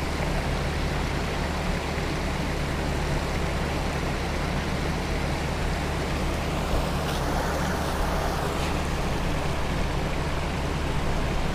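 Steady rushing noise, most likely wind buffeting the camera's microphone, with a low rumble beneath it. About seven seconds in, it swells for a second or two, then settles back.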